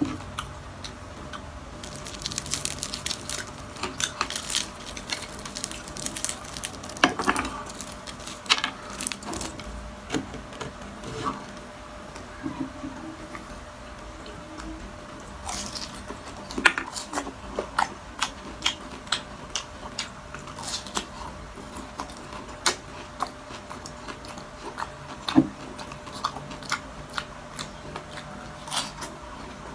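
Close-up crunching and chewing of crispy deep-fried cracklings, with irregular sharp crackles as the brittle pieces are handled and bitten. A faint steady hum runs underneath.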